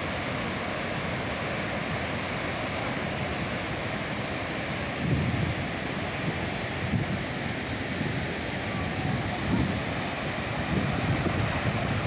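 Water rushing steadily from a dam's open spillway gates and crashing into the river below. Gusts of wind buffet the microphone a few times in the second half.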